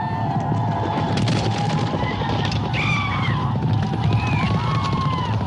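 Film soundtrack of a cavalry charge: a dense rumble of many galloping horses with riders yelling war cries over it, and scattered shots.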